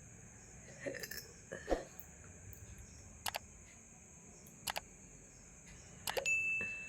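A person hiccuping: short, sudden hics about a second in, near two seconds and again near the end, with a couple of fainter clicks between them, over a steady high-pitched hiss.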